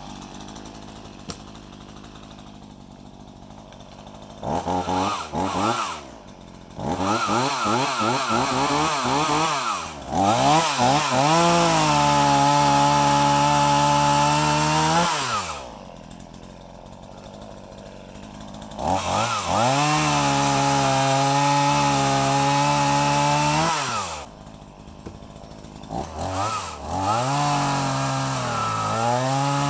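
Champion 16-inch gas chainsaw idling, then revved and run at full throttle in three long runs of several seconds, dropping back to idle between them, as it bucks logs.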